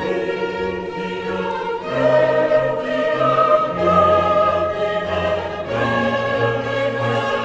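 Choir singing with orchestral accompaniment: long held chords that change every second or two, getting louder about two seconds in.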